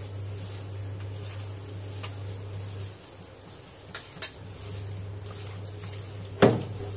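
Hands mixing minced chicken kofta mixture in a stainless steel bowl, with light clicks against the bowl and one sharp knock on it near the end, over a steady low hum.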